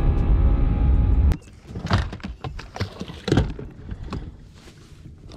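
Boat's outboard motor running under way, cutting off abruptly a little over a second in; then a few light knocks and rattles in the boat.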